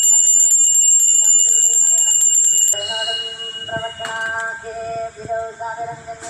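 Brass puja hand bell rung rapidly and continuously for aarti, a steady high ringing that stops about two and a half seconds in. After it a slow tune carries on while the bell's last tone dies away.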